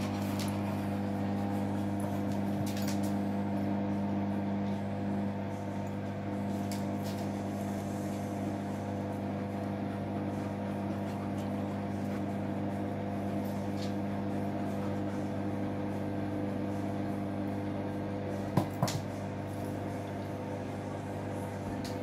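Hoover front-loading washing machine tumbling a load through the wash water: a steady motor hum, one of its tones fading about five seconds in. Two sharp knocks close together near the end.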